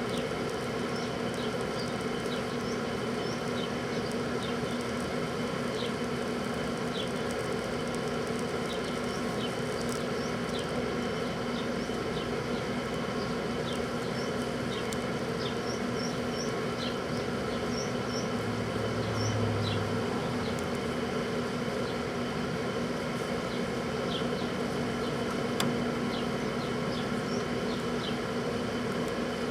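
Microwave oven running with a steady buzzing hum, with faint short ticks scattered through it.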